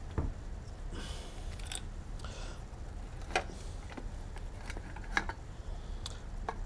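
Scattered light clicks and short rustles of small parts being handled, over a low steady hum.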